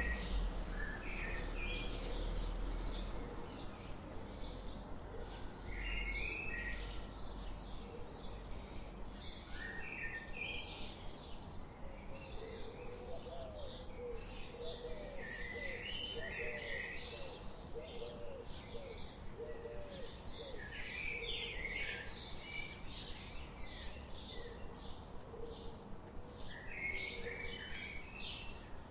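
Several forest birds calling together: many quick, high chirps all through, with warbling calls a little lower. A run of short, lower hooked notes comes in about halfway through.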